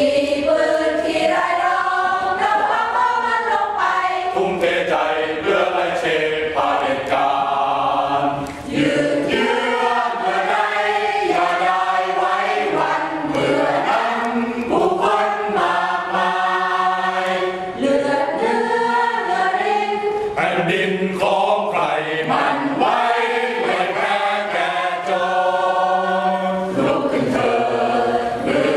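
Mixed choir of men and women singing together, with short breaks between phrases about 9 and 18 seconds in.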